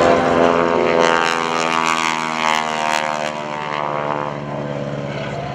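Stearman PT-17 biplane's Pratt & Whitney R-985 radial engine and Hamilton Standard propeller in a tight low-level turn, a steady drone whose pitch bends as the plane sweeps by. Louder in the first half, easing near the end.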